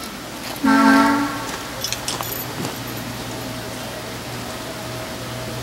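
Small diesel locomotive on a 15-inch gauge ride-on railroad sounding one short horn blast about a second in, with its engine running steadily underneath as it rolls slowly toward the station.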